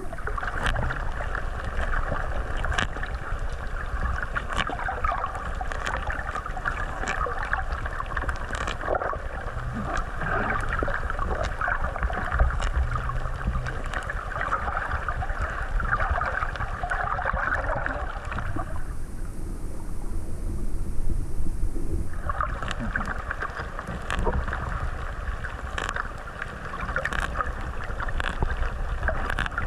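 Sea turtle grazing on seagrass underwater, heard through a camera housing as a dense, continuous crackling and tearing over a low water rumble. The crackling stops for a few seconds about two-thirds of the way through, then starts again.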